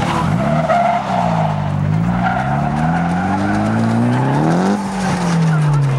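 Car engine held on the throttle, its pitch climbing for a few seconds and then dropping near the end, with tyres squealing as the car slides sideways.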